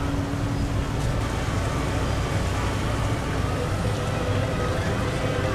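Steady low rumbling background noise, with faint steady tones coming in near the end.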